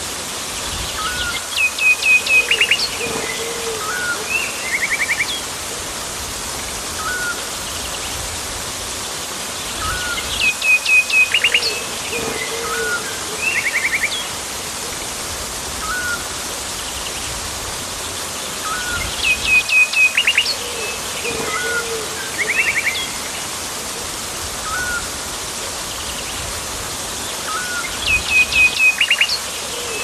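Birds calling over a steady hiss of rushing water. Each phrase is a quick run of high chirps, short whistled notes and a lower note, and the same phrase comes back about every nine seconds.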